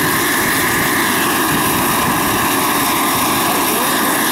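Turbine-powered radio-controlled scale MD 500E helicopter hovering low, its five-blade rotor and engine running with a steady high tone over a rushing noise.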